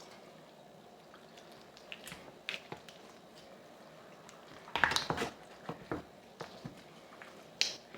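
A knife and hands working through a raw chicken wing: soft wet squishing with a few short clicks and knocks, loudest in a cluster about five seconds in.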